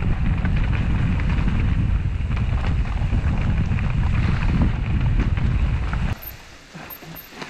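Wind buffeting the microphone of a mountain-bike rider's camera, with the tyres crunching and rattling over a loose gravel trail during a fast descent. The noise drops off abruptly about six seconds in.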